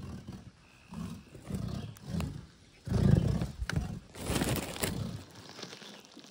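Worm fiddling: a sapling stake driven into the ground being rubbed, making rough, groaning strokes in uneven bursts, the loudest about three seconds in and again a second later. The vibration goes down through the ground and roots to drive earthworms up to the surface.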